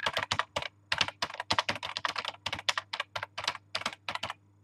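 Typing on a computer keyboard: a quick, irregular run of key clicks with a couple of short pauses.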